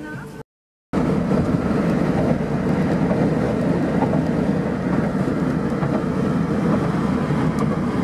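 Steady road and wind noise from a moving car, starting abruptly just under a second in after a moment of silence; a little music is heard before the silence.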